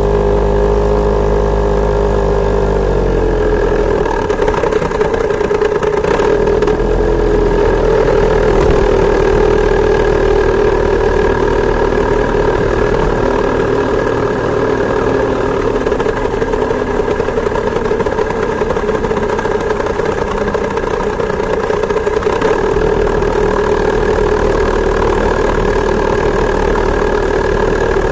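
Two-stroke chainsaw engine of a homemade moped running steadily under way; its pitch eases down slightly about three seconds in, then holds even.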